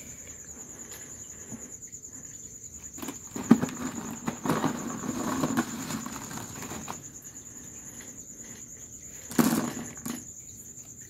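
Ceramic aquarium filter media, small bio-balls and ceramic rings, clattering and rattling against each other as a hand stirs through them in a plastic basket: a long spell of clatter starting about three seconds in, and a short loud burst near the end. A steady high-pitched trill runs underneath.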